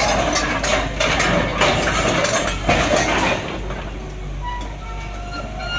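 Crawler excavator driving on steel tracks: track links clanking and rattling over the steady drone of its diesel engine, easing after about three and a half seconds into thin metallic squeals.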